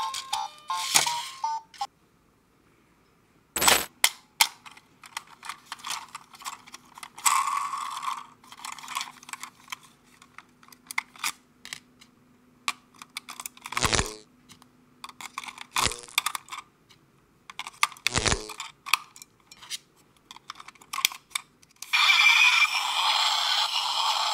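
Clicks, taps and a few sharp knocks as a battery-powered plastic Thomas the Tank Engine toy is handled and turned over. A faint low hum runs through the middle. Near the end a louder, dense, continuous sound starts.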